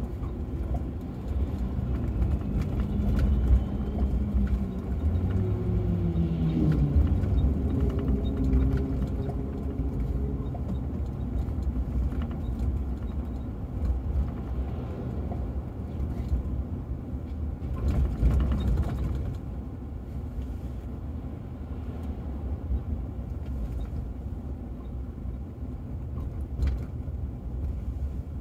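Road and engine noise inside a moving Ford Crown Victoria: a steady low rumble, with a pitch that climbs and levels off about five to seven seconds in.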